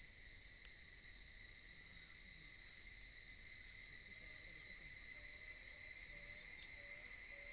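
Faint forest insect chorus: a steady, high, cricket-like drone. About halfway in, a soft low call joins it, repeating about twice a second, and the sound grows slowly louder.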